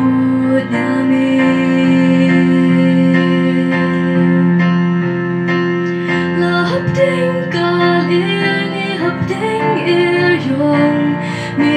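A woman singing a Khasi gospel song, accompanying herself on an electronic keyboard with sustained chords.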